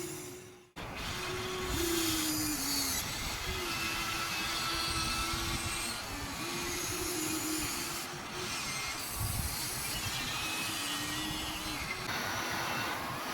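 Electric gear motors of a HUINA 1593 1/14-scale RC excavator whining as it is driven. The pitch wavers and drops each time a motion stops, and a new motion starts a few times over. The sound cuts out briefly just under a second in.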